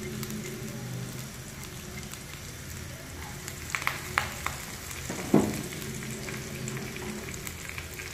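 Oil sizzling in a frying pan as mustard and cumin seeds are tempered with curry leaves, green chillies and garlic, stirred with a silicone spatula. A few sharp pops near the middle are the mustard seeds starting to crackle. A single louder knock comes a little after them.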